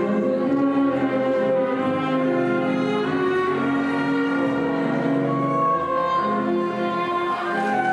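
Orchestral music with bowed strings playing long held notes layered over one another, at a steady level.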